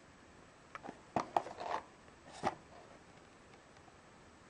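Small cardboard toy box handled and turned in the hands: a handful of clicks and scrapes of fingers on the box, bunched between about one and two and a half seconds in.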